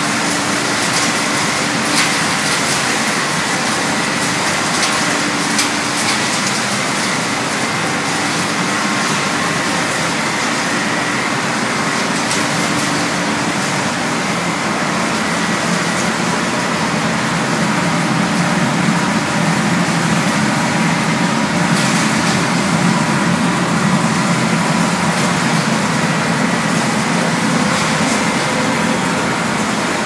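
Refrigerator recycling plant machinery running, a steady dense mechanical noise with a few sharp knocks, about two seconds in and again about two-thirds of the way through.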